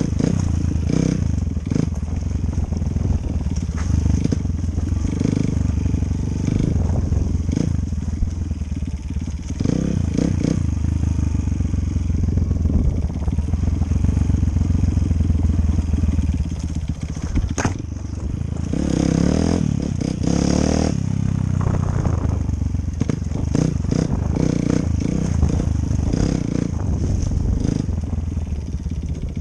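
Enduro dirt-bike engine running on a trail, its speed rising and falling, with scattered clattering knocks from the bike bouncing over rough ground.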